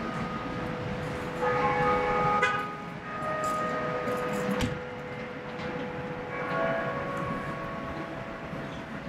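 Church bells ringing at noon: several bells at different pitches struck in turn, their long hum overlapping, with fresh strikes about one and a half, two and a half and six and a half seconds in.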